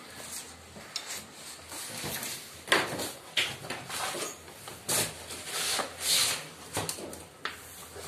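Door of a new Voltas Beko DT88 dishwasher being unlatched and pulled open: a sharp latch click about a third of the way in, then more knocks and scraping rushes as the door swings down.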